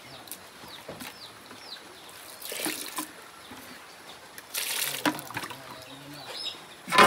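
Water poured from a plastic bucket into a metal bucket of coarse meal, in two splashing pours about 2.5 and 4.5 seconds in, with hens clucking faintly. A sudden loud sound comes right at the end.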